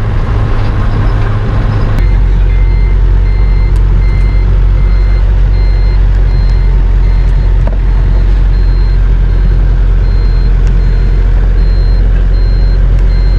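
Passenger van's engine and road noise heard from inside the cab, a loud low drone, with a high electronic beep repeating in a steady rhythm from about two seconds in.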